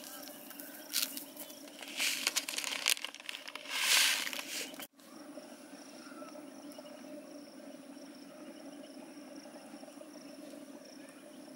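Sesame seeds poured by hand into a plastic bowl, heard as a few hissing, pattering pours in the first few seconds, the loudest near four seconds in. After an abrupt cut, a steady outdoor background with a low hum and a faint high drone.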